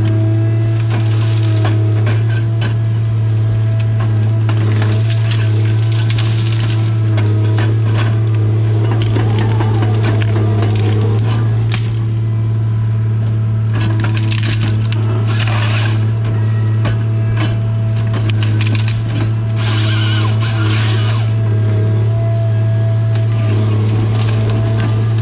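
Tigercat 855C harvester's diesel engine running with a steady low drone and hum, while the LogMax 7000 head's saw and delimbing knives go through hardwood stems in several short noisy bursts, with wood cracking and splintering.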